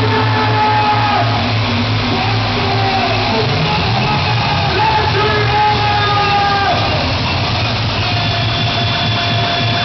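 Loud hardcore techno over a club sound system in a large hall: long held synth notes that step and glide in pitch over a steady low bass.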